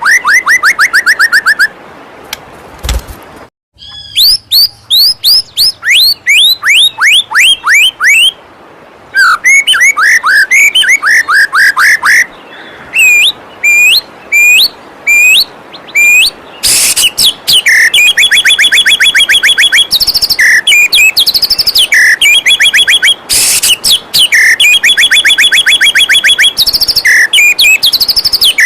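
White-rumped shama (murai batu) song: loud, rapid runs of repeated chirping notes, the phrase changing every few seconds, with a short pause about two seconds in. A faint steady rush of falling water runs underneath.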